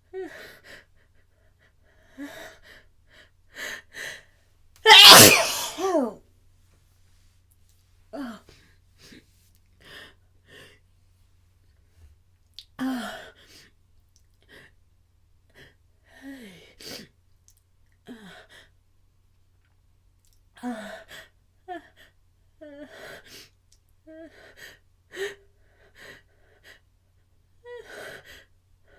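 A person sneezing during a sneezing fit: one very loud, wet sneeze about five seconds in and a second, weaker sneeze near the middle, with repeated short gasping, catching breaths of the build-up in between.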